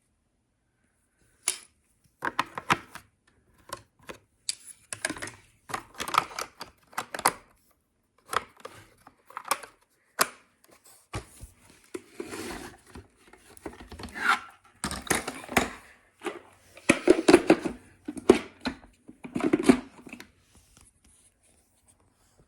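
LEGO bricks clattering: irregular clusters of sharp plastic clicks and rattles, some loud, starting a second and a half in and stopping shortly before the end.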